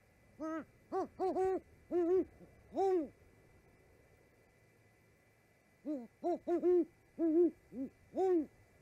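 Great horned owl hooting: two bouts of several hoots each, the first about half a second in and the second about three seconds later.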